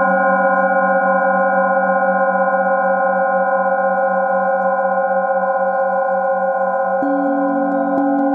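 Metal singing bowls ringing in a steady, layered hum with a wavering pulse in the low tone, as a bowl is rubbed around its rim with a wooden mallet. About seven seconds in, a slightly higher tone joins and light ticks of the mallet against the rim come in.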